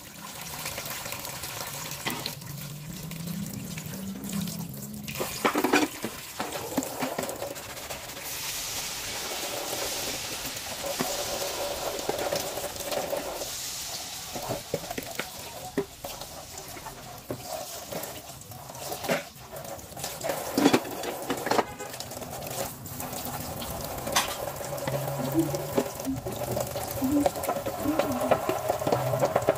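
Tap water running into a sink, with scattered clinks and knocks as things are handled at the sink.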